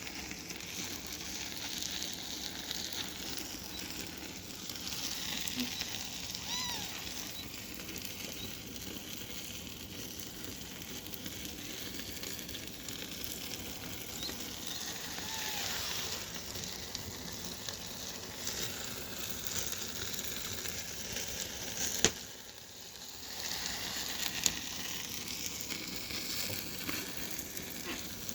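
Firewood burning in an open fire, a steady hiss with fine crackling. Two sharp, loud pops stand out about three quarters of the way through, a couple of seconds apart.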